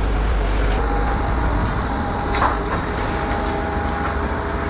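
Heavy machine's diesel engine running steadily with a low rumble and a steady whine, and a single sharp knock about two and a half seconds in.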